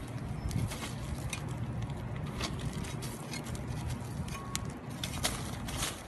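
Small hand trowel scraping and scooping gravelly soil and charcoal into a pit, with irregular scrapes and small clicks of grit.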